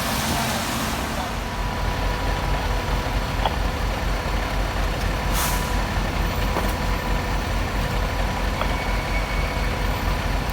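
Large diesel truck engine running steadily with a low throbbing rumble, likely fire apparatus standing at the scene. A short air hiss comes about five seconds in, like an air brake venting.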